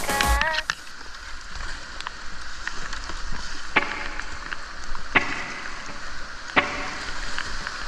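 Creek whitewater rushing around a kayak, with three sharp paddle strikes about a second and a half apart.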